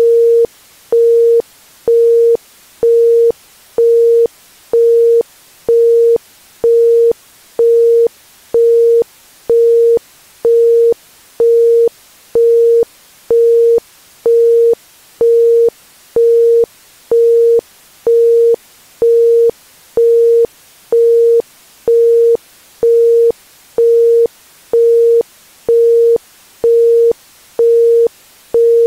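Isochronic brainwave-entrainment tone: a single pure 465 Hz tone pulsed on and off about once a second (1.05 Hz), even beeps with silent gaps between them, over a faint background hiss.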